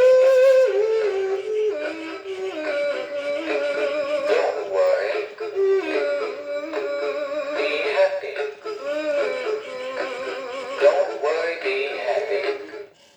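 Gemmy Big Mouth Billy Bass singing-fish toy playing its song through its small built-in speaker: a recorded voice singing over music, thin with almost no bass, cutting off near the end. The toy is working again after a repair.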